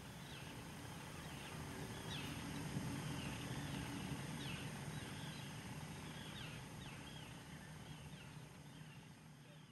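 Shorebirds calling in many short, quick down-slurred chirps over steady background noise, the sound fading away near the end.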